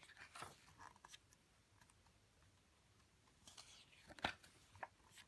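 Faint rustling of glossy photobook pages being turned and handled, with a few soft clicks, the sharpest about four seconds in.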